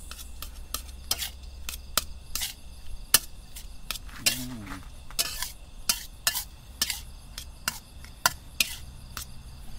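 A cooking utensil clacking and scraping against a thick iron pan as fried rice is stirred and tossed, in irregular sharp knocks about two to three a second.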